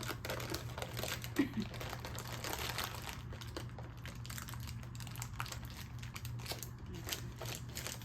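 Crinkling and rustling of a plastic snack bag being handled, a run of irregular small crackles.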